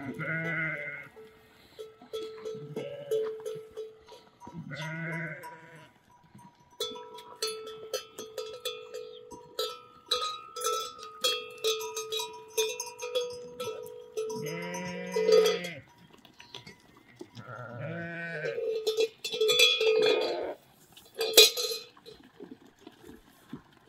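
Sheep and goats bleating several times, with animal bells clanking and ringing through the middle of the stretch.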